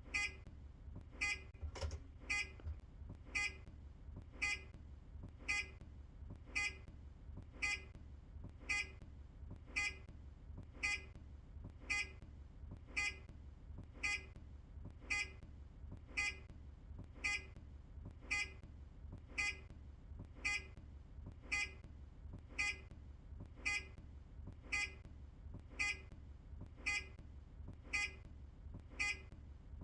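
Optare Solo bus's turn-indicator buzzer beeping in a steady, even rhythm, a short pitched beep with each flash, over a low steady hum.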